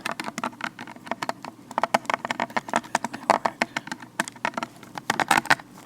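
Gloved fingers tapping and crinkling close to the microphone: a quick, irregular run of crisp clicks and taps, vinyl-latex gloves.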